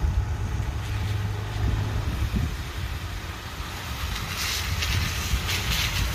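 A Grumman LLV mail truck approaching slowly over a gravel driveway: engine running and a low rumble, with tyre noise on the gravel growing louder near the end as it comes close. Wind rumbles on the microphone throughout.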